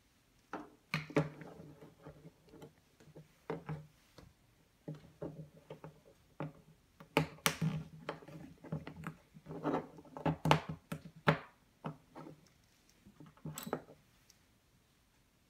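Plastic Lego Technic parts (beams, pins, gears and axles) clicking and knocking as they are pressed together, handled and set down on a wooden table: an irregular string of sharp clicks and taps, each with a short hollow thud, stopping about a second before the end.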